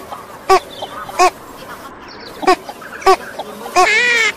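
Duck quacking: about five short nasal quacks spaced roughly a second apart, then a longer drawn-out quack near the end.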